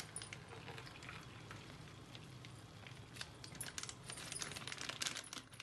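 Plastic milk pouch crinkling in the hands as it is squeezed empty into a steel bowl: faint scattered clicks and rustles, growing busier about three seconds in.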